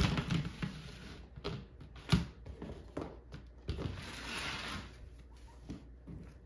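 Household items being handled and set down: a series of knocks and thumps, the sharpest about two seconds in, with a brief swishing rustle between about four and five seconds.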